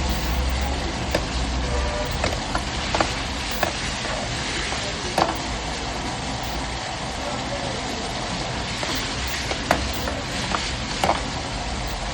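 Chicken Kolhapuri sizzling as it fries in a pan, with sharp clicks of a spoon against the pan every second or so.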